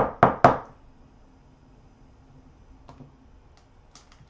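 Three quick knocks of hard plastic card holders against the desk within the first half second, followed by a few faint clicks.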